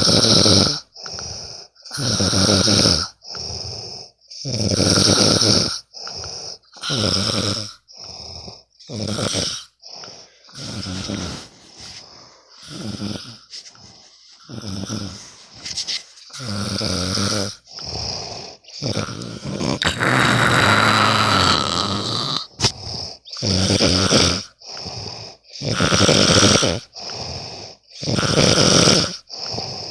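Loud, steady snoring: noisy snores come about one a second, alternating longer and shorter, with one longer drawn-out snore about two thirds of the way through.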